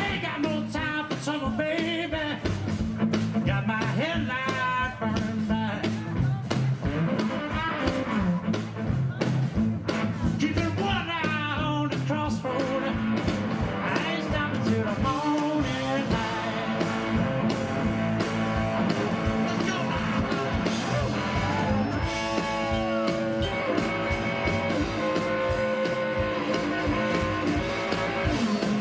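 Live electric blues song: a man sings long, wavering lines over the band for the first dozen seconds or so, then the electric guitar takes over with sustained, bending lead notes.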